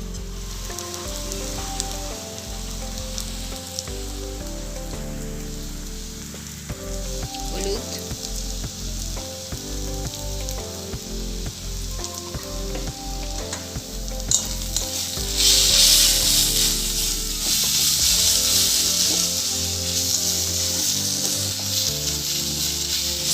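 Onion, garlic and freshly added ground spices (Kashmiri chilli, cumin, coriander) frying in hot oil in a pan, sizzling while being stirred, with a few scrapes of the spoon. The sizzle gets clearly louder about fifteen seconds in.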